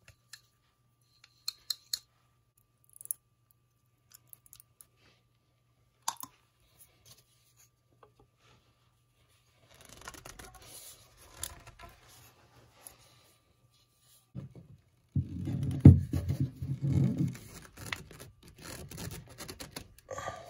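Scattered light clicks and taps as PVC fittings and cement cans are handled, then the scratching of a cement applicator on PVC pipe. About five seconds before the end comes a louder few seconds of rubbing and scraping as the cemented pipe is pushed and twisted into its fitting.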